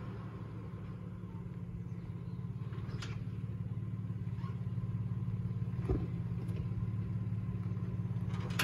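Nissan Frontier pickup's engine running at low crawling revs, growing gradually louder as the truck comes closer over rocks and roots. A few short sharp knocks come through, about three seconds in, around six seconds, and at the very end.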